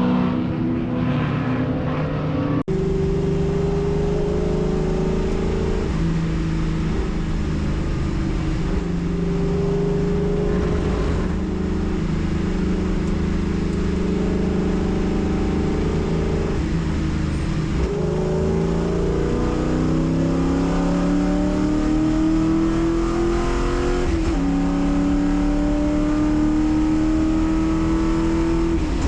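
Race car engine under load on track, its pitch climbing steadily through each gear and dropping sharply at the upshifts, about three times.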